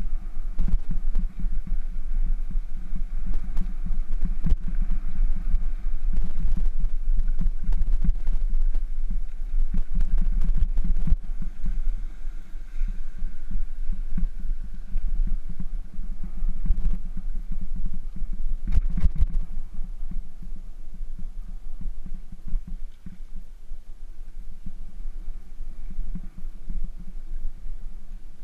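Bicycle ride on a gravel trail heard from a bike-mounted camera: a steady low rumble of wind and vibration, with many small knocks and rattles as the wheels run over stones, and a louder jolt about two-thirds of the way through.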